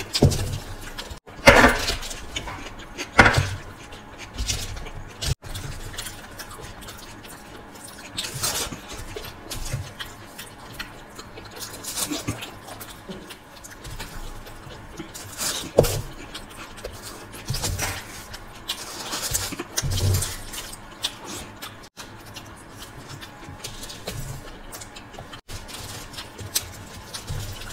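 Two people eating macaroni with metal spoons: spoons scraping and clicking on the aluminium foil and scooping the pasta, with chewing and mouth sounds between, in scattered irregular bursts.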